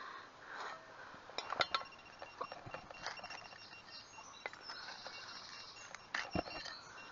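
Rustling and scraping of hands and gear working over soil and leaf litter, with scattered sharp clicks and knocks, the loudest about a second and a half in and again near the end. A faint steady high-pitched tone runs behind it.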